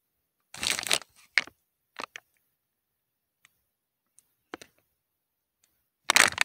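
Handling noise from a hand-held phone and canvas: a brief rustling burst about a second in and another near the end, with a few scattered sharp clicks and taps between.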